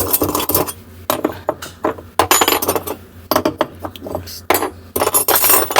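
Metal hand tools clinking and rattling against each other, many quick clicks and clatters, as someone rummages through tools for the right one.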